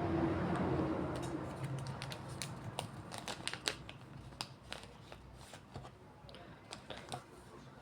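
Crafting materials being handled for a homemade squishy: a run of quick, sharp clicks and crinkles from about two to seven seconds in.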